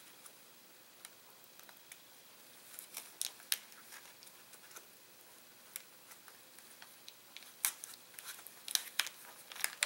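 Scattered light clicks and crinkles of gloved hands pulling tape and working small diagonal cutters on a drone battery's foil-wrapped lithium-polymer pouch cells, bunched around three seconds in and again near the end.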